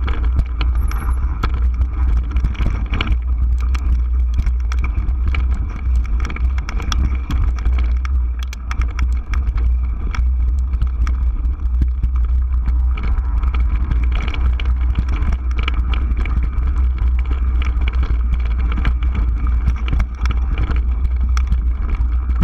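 Gary Fisher Superfly 29er mountain bike riding over slickrock and rocky dirt, heard through a handlebar-mounted GoPro Hero 3. A steady low rumble of wind and vibration runs throughout, with frequent clicks and rattles as the tyres and bike jolt over the rock.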